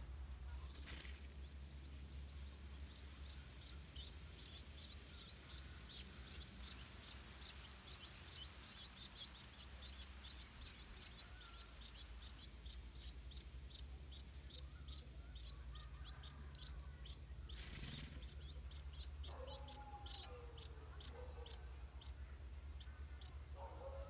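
Stripe-throated bulbul nestlings begging: a long, even run of thin, high chirps, about three a second, growing louder toward the end.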